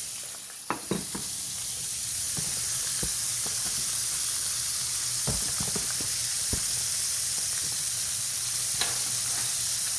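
Flour-dredged turkey cutlets frying in hot grapeseed oil in a skillet: a steady sizzle that grows a little louder over the first two seconds, with a few light clicks and knocks scattered through it.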